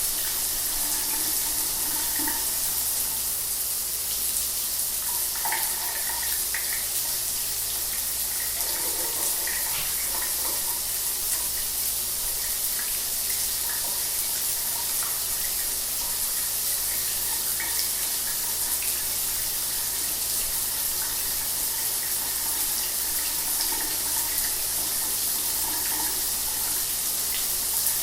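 Shower water running steadily: an even hiss of spray with small scattered splashes.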